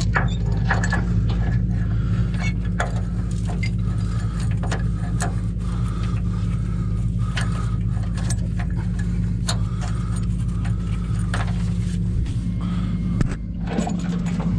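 Heavy diesel truck engine running steadily, with scattered metallic clinks and knocks over it.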